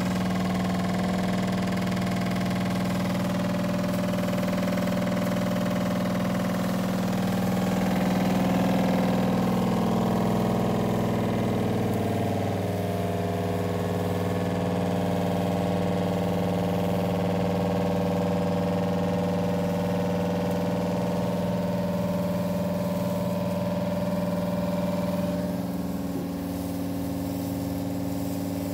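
Small 12-volt diaphragm pump of a soft wash rig running steadily, pumping wash solution out to a spray wand, with a continuous hum. The hum shifts slightly about twelve seconds in and gets a little quieter near the end.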